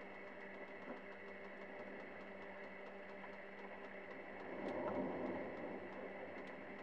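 Steady low electrical hum with faint hiss, like room tone from equipment. A brief swell of rustling noise comes about five seconds in.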